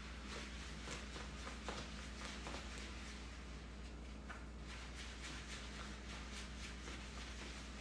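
Faint, soft rubbing of an applicator wiping a ceramic glass coating across a car windshield, with many small scuffing strokes over a steady low hum.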